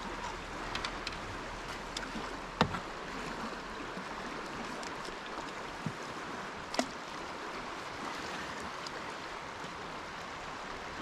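Steady rush of river water flowing past an anchored boat, with two sharp knocks, one a few seconds in and another near the middle.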